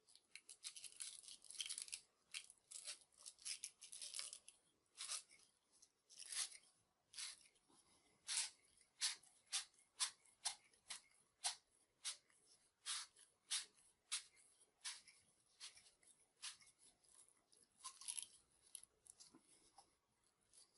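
A 4-in-1 pipe cleaning tool scrubbing the outside of a 3/4-inch copper pipe with short, faint rasping strokes, about one to two a second. This is the copper being cleaned bright and shiny to prepare it for soldering.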